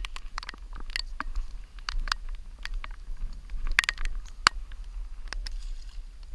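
Irregular light ticks and taps on the camera, a few a second and uneven in strength, over a steady low wind rumble on the microphone.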